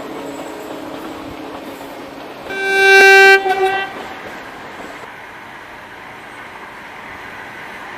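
Narrow-gauge train's horn sounding one loud blast of about a second and a half, a single steady tone that breaks up briefly at the end, over the steady running noise of the train.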